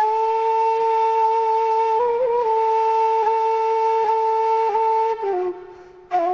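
Background music: a flute-like wind instrument holds one long note for about five seconds with small ornaments, fades, and starts a new, lower note just before the end.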